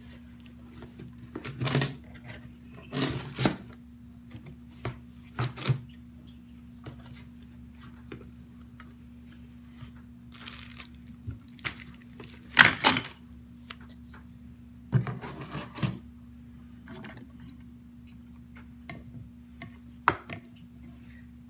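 Supplies and their packaging being handled and packed into a cardboard box: scattered rustles, scrapes and knocks, the loudest a sharp knock about halfway through, over a steady low hum.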